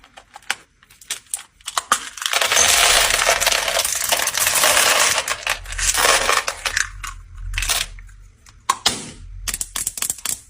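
Small hard candies clattering: a few separate clicks, then a dense rattling rush for several seconds as a mass of them pours, then scattered clicks again.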